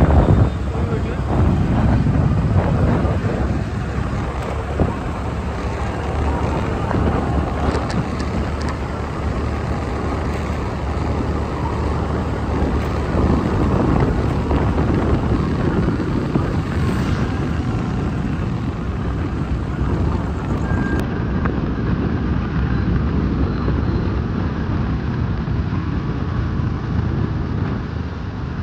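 Steady rumble of a vehicle driving along a road, engine and road noise, with a short knock right at the start.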